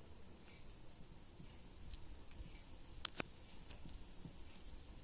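An insect chirping in a steady high pulsed trill, about ten pulses a second, with two sharp clicks about three seconds in.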